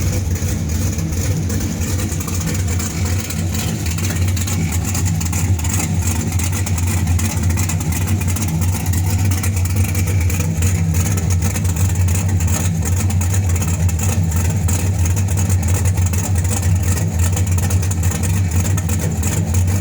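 Ford Mustang engine idling steadily in the minutes after a cold start.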